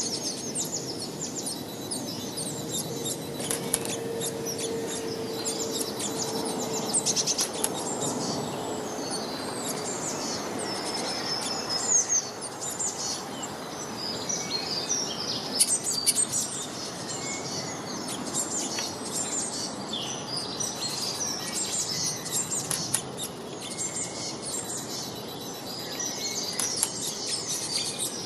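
A chorus of many small birds chirping and trilling at once, over a steady outdoor hiss, with a low steady tone for a few seconds near the start.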